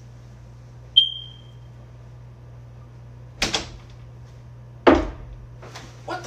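Wooden bedroom door being pushed shut. A sharp click with a brief ringing tone comes about a second in, then a knock, then a louder knock a second and a half later, and a smaller knock near the end.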